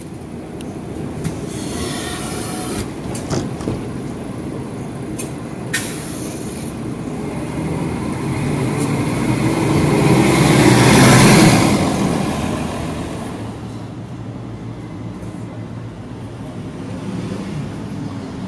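Street traffic rumble with a large vehicle going by, swelling to its loudest about eleven seconds in and then fading. A few sharp clicks and knocks come in the first few seconds.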